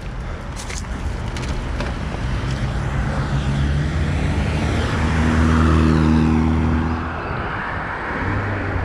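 A motor vehicle's engine approaching and passing close by, loudest about six seconds in, then fading, over a steady noisy rumble.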